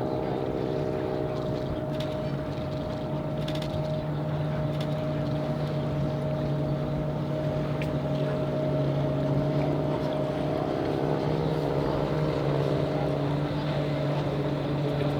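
Steady engine drone of a charter boat underway, with wind on the microphone. A second engine note, from the biplane flying past, glides in pitch near the start and again toward the end.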